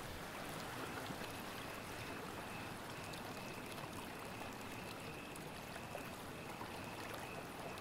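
Faint, steady rushing noise like gently running water, with a thin high tone that comes and goes.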